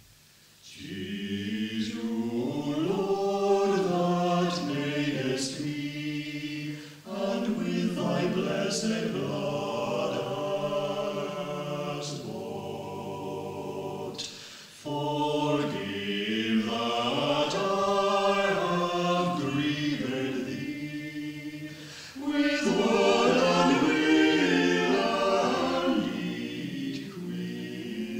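Amateur choir singing unaccompanied in four long phrases, starting about a second in, on an early-1960s reel-to-reel tape recording.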